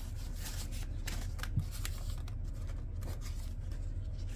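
Paper banknotes, a stack of US five-dollar bills, rustling and flicking as they are counted through by hand, in a quick irregular run of crisp crinkles.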